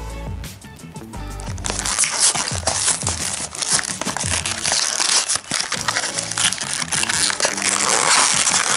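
A plastic blister pack and its cardboard backing being torn and crinkled open by hand, a dense crackling that starts about two seconds in and goes on loudly. Background music plays underneath.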